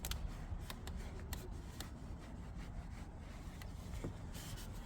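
Towel wiping and rubbing a car's dusty dashboard, with a few light clicks and taps over a low steady rumble.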